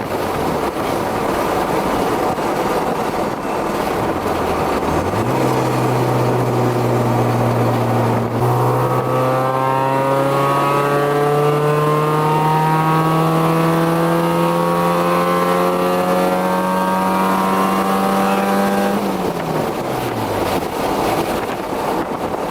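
Car engine accelerating hard. Its pitch falls at first. About five seconds in it climbs and keeps rising steadily in one gear for roughly fourteen seconds, then drops away as the throttle is lifted, over steady road noise.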